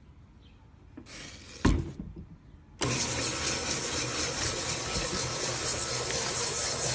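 Electric hand mixer beating slime. A brief burst and a knock about a second in, then the motor switches on almost three seconds in and runs steadily and loudly.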